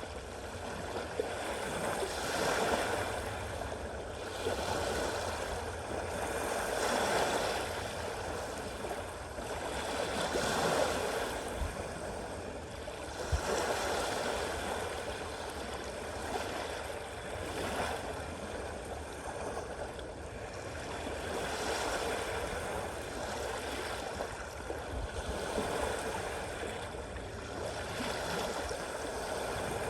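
Sea waves washing in, the noise swelling and easing every three to four seconds.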